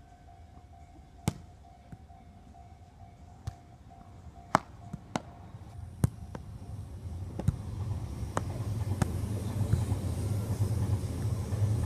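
A volleyball being struck by hand: sharp single smacks at uneven intervals, about eight in all, as in a rally. A low rumble grows steadily louder from about halfway in.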